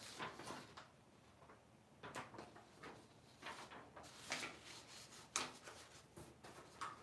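Faint, irregular clicks and rustles, about six of them spread a second or so apart.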